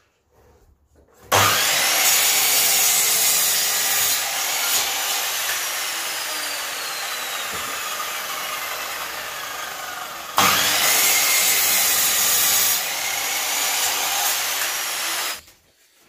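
Electric sliding miter saw cutting a 45-degree angle into a block of scrap timber. The saw starts abruptly about a second in, runs about nine seconds, surges straight back up for a second pass around ten seconds in, and stops near the end.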